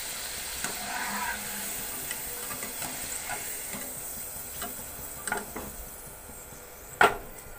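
Potato strips sizzling in hot oil during their first, light fry, with a steel wire skimmer clicking against the pan as it scoops them out. One sharp knock near the end is the loudest sound.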